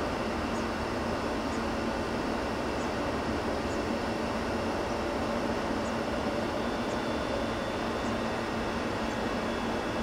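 Steady background noise, an even rumble and hiss with a constant low hum, unchanging throughout.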